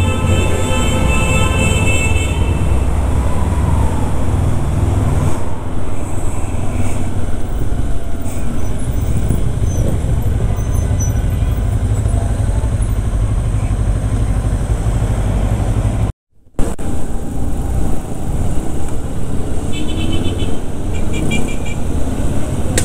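Motorcycle riding noise on a rider-mounted camera: steady engine and wind rumble, with background music fading out in the first two seconds. The sound cuts out for a moment about two-thirds of the way through, and a few short beeping tones come near the end.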